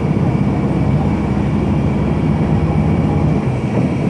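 Mercedes-Benz OF-1721 bus's four-cylinder turbo-diesel engine running steadily at an even speed.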